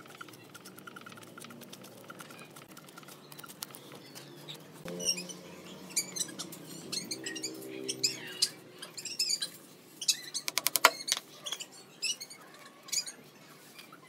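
Flat wooden stick stirring a sawdust-and-glue wood filler in a small plastic tub, then scraping and pressing the paste onto a pallet-wood block, with scattered sharp clicks and scrapes. A quick run of clicks just before eleven seconds is the loudest part.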